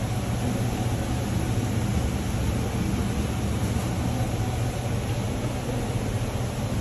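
Steady machine hum with a low drone and an even rushing noise over it, unchanging throughout.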